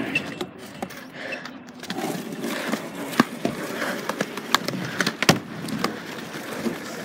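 Skateboard wheels rolling over rough concrete with a steady rumble, broken by a few sharp clacks of the board in the second half.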